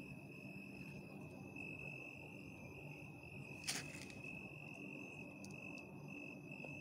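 Crickets trilling, one steady high continuous note, faint. A single short click a little before four seconds in.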